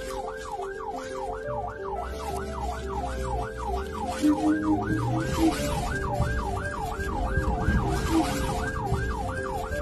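Emergency vehicle siren in a fast yelp, its pitch sweeping up and down about three times a second, with a lower steady tone and a low rumble beneath it.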